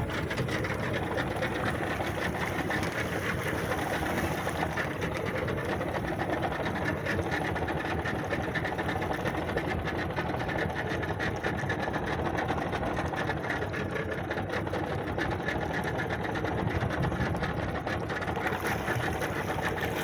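Small fishing boat's outboard motor running steadily, a fast even mechanical chatter.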